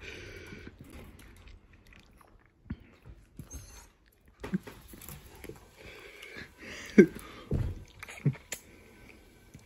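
Miniature dachshund chewing and crunching a treat, with scattered sharp clicks and knocks, the loudest about seven seconds in.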